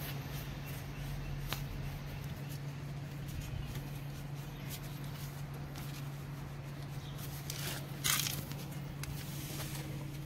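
Faint clicks and light metal handling from a spanner working on brake caliper mounting bolts, with a short scrape about eight seconds in, over a steady low hum.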